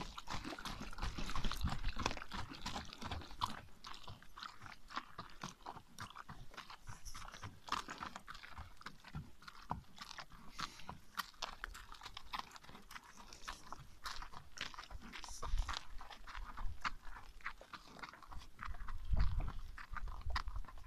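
An American Paint horse's hooves crunching on a gravel road as it moves along, a steady run of irregular crunching steps. A low rumble comes in near the end.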